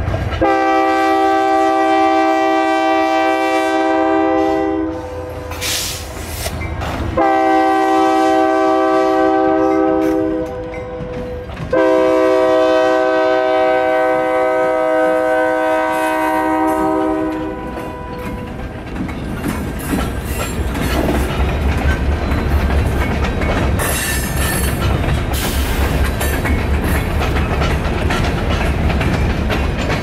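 Canadian National diesel freight locomotive sounding its multi-chime air horn in three long blasts, then the train's freight cars rolling past with a steady rumble and clickety-clack of wheels over rail joints.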